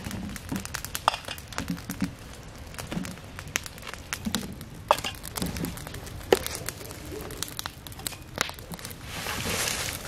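Irregular sharp crackles and clicks with rustling, and a longer rustle near the end.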